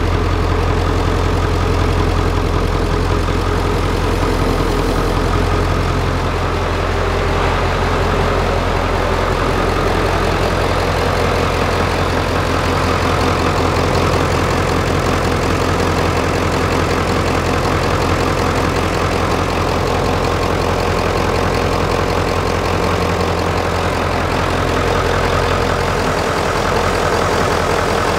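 1996 Ford F-350's 7.3-liter turbo diesel V8 idling steadily, running on a shorter serpentine belt with its belt-driven vacuum pump removed.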